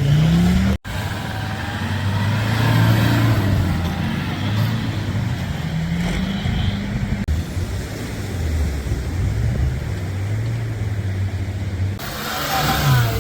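Off-road 4x4 engine running under load, its pitch rising and falling as the throttle is worked. The sound cuts out for an instant about a second in.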